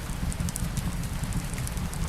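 Fireplace crackling with scattered small pops over a steady patter of light rain, with a low rumble underneath.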